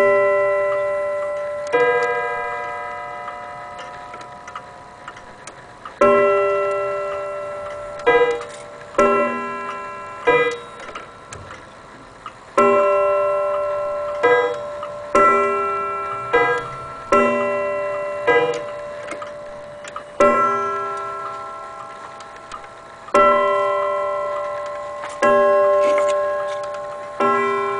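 Antique German Vienna wall clock striking on its gong: a long series of struck notes at irregular spacing, some in quick pairs, each ringing out and dying away, with the movement ticking faintly between.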